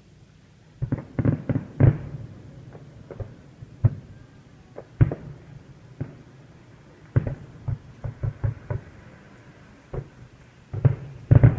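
Fireworks show: booms of aerial shells bursting, coming in clusters. There is a quick run of bangs about a second in, single booms around four and five seconds, another run from about seven to nine seconds, and a loud flurry near the end.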